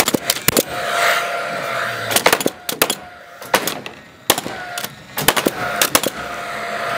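Framing nail gun firing nails into timber, tacking two girder trusses together to laminate them. About a dozen sharp shots come in quick runs of two or three, with a faint hum between them.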